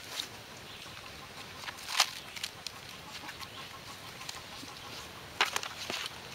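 Pages of a thick stack of printer paper being lifted and turned by hand, with short sharp rustles about two seconds in and again near the end.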